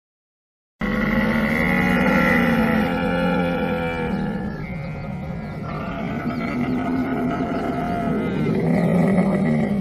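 Camel calling: a loud, deep, drawn-out groaning call with shifting pitch that starts suddenly about a second in and carries on with hardly a break.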